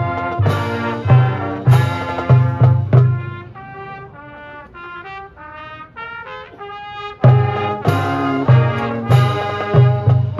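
Marching band playing: brass ensemble with cymbal crashes and bass drum hits. It comes in with a sudden loud hit, drops to a softer melodic passage in the middle, and comes back loud about seven seconds in.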